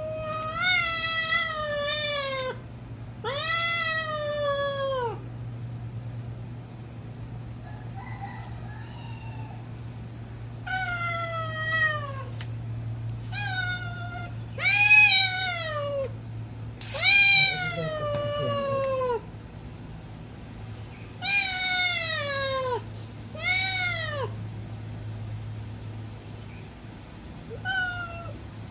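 Domestic cat meowing over and over: about ten long, drawn-out calls, each rising and then falling in pitch, with gaps of a few seconds between some of them. A steady low hum runs underneath.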